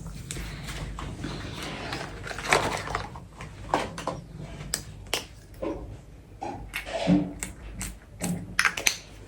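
A run of small clicks, taps and handling noises, irregular and a few each second, from skincare bottles and containers being opened and handled, with several sharper clicks near the end.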